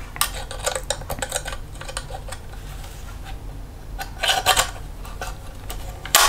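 Light metallic clicks and clinks of a Kodak Vest Pocket Autographic camera's metal body and parts being handled. A run of small clicks comes first, a louder cluster follows about four seconds in, and one sharp click sounds near the end.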